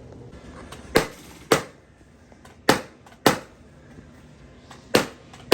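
Loud, sharp knocks in pairs about half a second apart, three pairs in all, each with a short ring after it.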